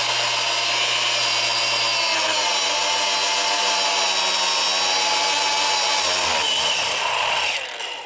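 Cordless cut-off tool with an abrasive metal-cutting wheel grinding through a steel fuel injector held in a vise. The motor whine runs steadily, dips in pitch under load in the middle, and winds down near the end.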